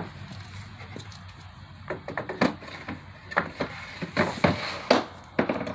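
Solid alder table leaves knocking and clattering against the table frame as they are slid into the storage compartment under the top: a run of sharp wooden knocks, several in quick succession from about two seconds in.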